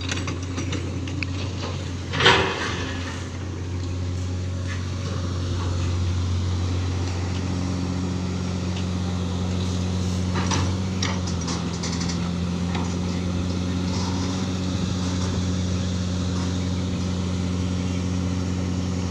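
Heavy diesel machinery running steadily, a low drone whose pitch shifts slightly partway through. A brief loud noise about two seconds in, and scattered clanks and knocks over it.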